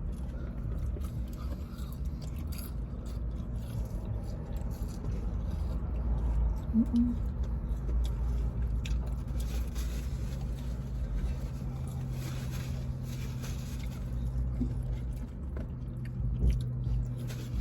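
Close chewing and biting into crispy fried chicken sandwiches, with small crunching clicks, over a low steady hum.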